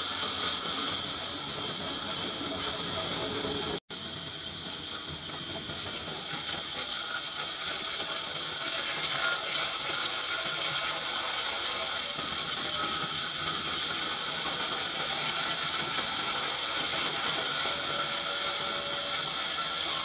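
Horizontal band-saw mill blade ripping lengthwise through a large log, a steady hissing saw noise with a high whine over it. The sound drops out for an instant about four seconds in, then the cutting goes on unchanged.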